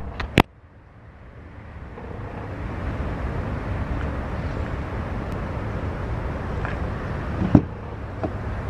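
Chevrolet Silverado 3500HD pickup's engine idling steadily, a low rumble that grows louder over the first few seconds. A sharp click comes right at the start, and a single clunk about seven and a half seconds in fits the driver's door latch opening.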